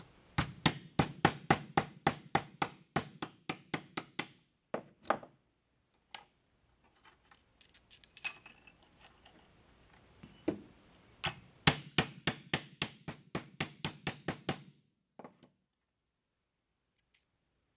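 Ball peen hammer tapping a folded strip of sheet brass against a concrete floor, hammering it closed to form a hinge. The taps come in two quick runs of about five a second, several seconds apart, with a few light metallic clinks of brass being handled between them.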